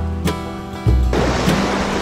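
Background music with acoustic guitar over a steady bass beat; about a second in, a steady rushing noise comes in beneath it.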